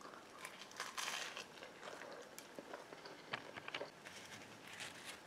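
Faint chewing of a toasted grilled cheese sandwich: scattered soft crunches and small mouth clicks.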